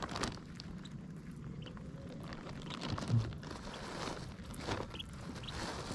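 Mandarin ducks pecking and nibbling at grass right beside the microphone: scattered soft clicks and rustles, with one louder low knock about three seconds in, over a steady low rumble.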